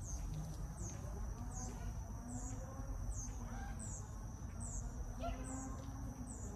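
Quiet outdoor backyard ambience: a short, high chirp repeats about every second over a steady high hum and a low rumble.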